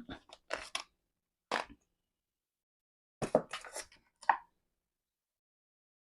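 Short clicks and knocks of an electric kettle's parts being handled and worked on by hand, in a few scattered groups with silence between them.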